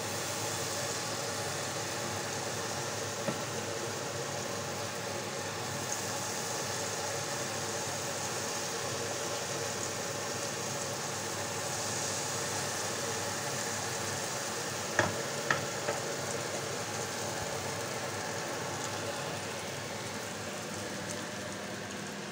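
Carrot pancake batter frying in liquid margarine in a frying pan: a steady sizzling hiss, with two sharp taps about fifteen seconds in.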